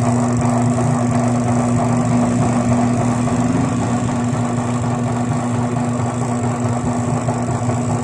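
Sharp top-loading automatic washing machine running empty, its motor wired straight to a single timer and turning the tub: a steady motor hum with a mechanical whirr.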